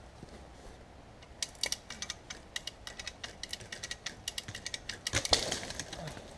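Hand-operated lever winch ratcheting with quick irregular clicks as it tensions the cable on a hung larch tree. About five seconds in comes the loudest part, a crackling rustle with a thud, as the tree is pulled off its stump.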